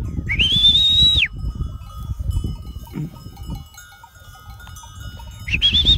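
A person whistling to call dogs: two long, high whistles, each rising at the start and then held for about a second, one near the start and one near the end, the second with a slight wobble. A low wind rumble on the microphone runs under them.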